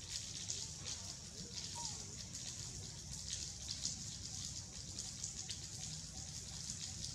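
Rain falling steadily: an even hiss with many small, quick drop taps throughout.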